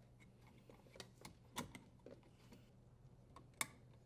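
Faint, scattered small clicks and ticks of a screw being threaded and tightened with a hand tool on a dishwasher's terminal box cover.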